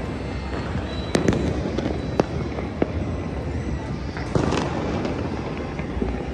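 Fireworks and firecrackers going off all over a city: a constant rumble and crackle of far-off bangs, with sharper, nearer bangs about a second in, at two and three seconds, and a quick cluster around four and a half seconds.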